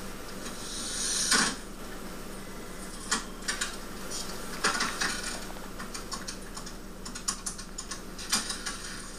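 Desk telephone being picked up and dialled, heard from a film through a TV's speakers: a rising rustle and knock about a second in, then irregular runs of sharp mechanical clicks.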